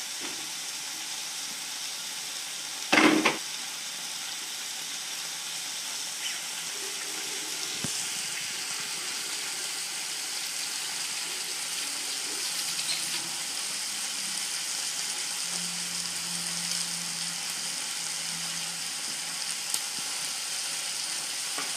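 Beef liver strips and sliced onion sizzling steadily in hot oil in a metal frying pan, with one loud sharp knock about three seconds in and a spoon stirring the pan near the end.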